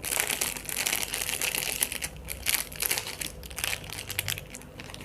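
Plastic packaging crinkling and rustling as it is handled, with many small sharp clicks.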